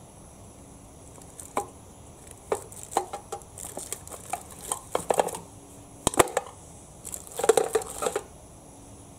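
A metal mess tin and its lid being handled with gloved hands: scattered light metallic clicks, knocks and scrapes, with two busier spells of clatter around the middle and near the end.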